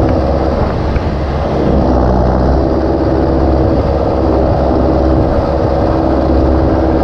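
John Deere four-cylinder tractor engine running steadily under load, pulling a cultivator through the field.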